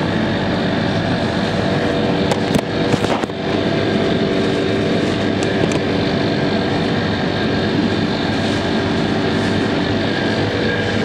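Steady mechanical hum with several held tones, with a few knocks and rustles about two to three seconds in.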